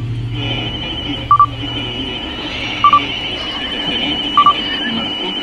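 Electronic beeper sounding three short double beeps, about one and a half seconds apart, like an alarm clock. A steady high-pitched tone comes in just after the start and holds under them.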